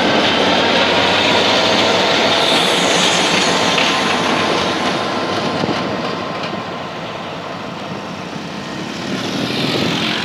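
Two diesel locomotives running light over a level crossing: engine noise and wheels on the rails, loud as they go by, then fading as they draw away from about six seconds in, with a brief swell in noise near the end.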